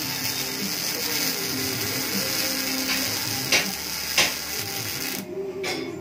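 CO2 (MIG) welding arc crackling steadily on a motorcycle exhaust pipe, with two louder pops a little past halfway; the arc cuts off about five seconds in.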